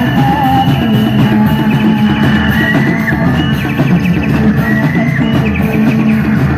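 Loud live band music coming through a big loudspeaker stack: electric guitar and drums keeping a steady beat, under a high melody line that wavers and slides in pitch.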